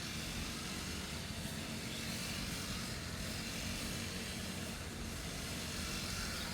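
A grass-cutting machine's small engine running steadily, a continuous drone over a hiss.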